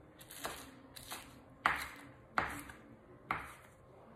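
Santoku knife chopping spinach leaves on a wooden cutting board: about five sharp knife strikes on the board, each under a second apart, the loudest in the middle.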